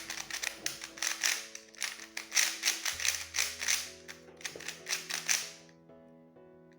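QiYi QiMeng V2 plastic 3x3 speed cube being turned fast: a rapid run of clacking layer turns that stops about five and a half seconds in. Background music plays underneath.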